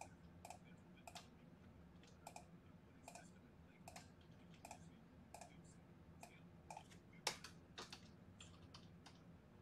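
Faint typing on a computer keyboard: irregular key clicks with a couple of louder clicks a little past the middle, over a faint steady low hum.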